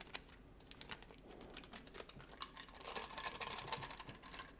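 Faint light crinkling and clicking as a stick of butter is peeled from its wrapper over a stainless steel mixer bowl. A few scattered clicks come first, then a denser patch of crinkling in the second half.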